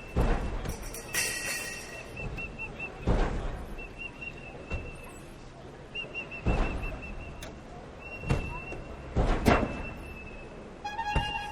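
A high whistle, some notes held and some trilled, in a rhythmic performance, with a heavy thump about every three seconds.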